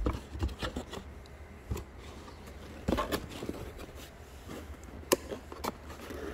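Cardboard boxes and bagged parts being handled: scattered light knocks, taps and rustles, with the sharpest tap about five seconds in.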